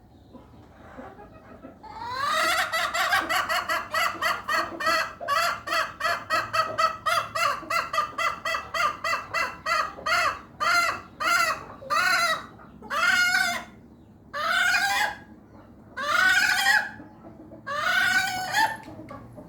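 Hen making an unusual call: about two seconds in, a rapid run of short pitched notes, several a second, that gradually slows into longer, separate calls about a second apart.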